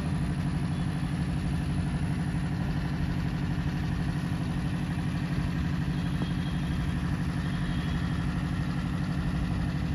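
Steady low engine drone with a fast, even pulse.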